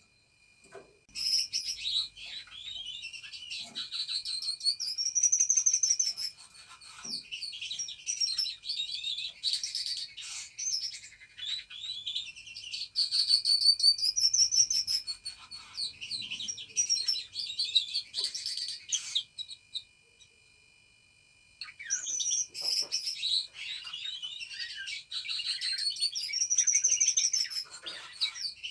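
Budgerigars chattering and warbling: continuous twittering with rising-and-falling whistled chirps. It stops for about two seconds roughly two-thirds of the way through, then starts again.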